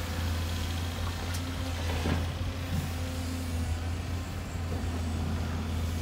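Diesel engines of a hydraulic excavator and dump trucks running in a steady low drone while the excavator loads soil, with a couple of brief knocks about a second and a half and two seconds in.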